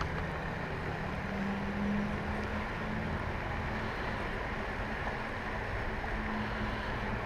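Steady outdoor noise, like wind on the microphone, with a faint low hum that fades in and out.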